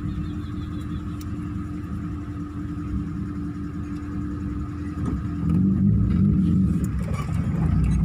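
Car engine idling, heard from inside the cabin, with the engine noise rising about five and a half seconds in as the car moves off.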